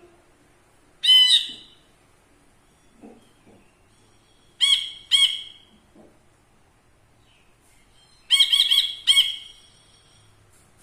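Brinji kelabu (cinereous bulbul) giving short, loud calls in three bouts: one about a second in, two quick notes near the middle, and a fast run of several notes near the end.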